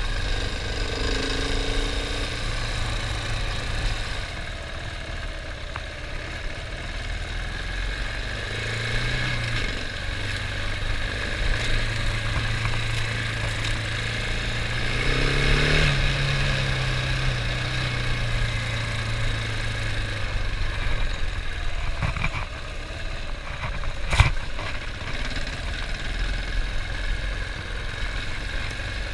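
Husqvarna 701 Enduro's single-cylinder engine running under way off-road, heard from onboard. The revs climb steadily to a peak a little past halfway and then drop back. There is one sharp knock about three-quarters of the way through.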